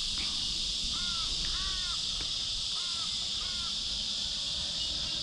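A bird calling about six times in short, arched calls over a steady high hiss and a low rumble.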